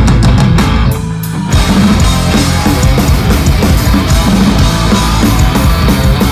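Melodic hardcore punk band playing live and loud: distorted electric guitars, bass and drum kit. After a sparser opening of bass and a few drum hits, the full band crashes in about a second and a half in.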